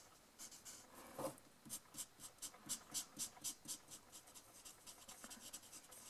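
Felt nib of a Twinmarker alcohol marker rubbing back and forth on white card in a blending pass, a faint run of short scratchy strokes, about four a second.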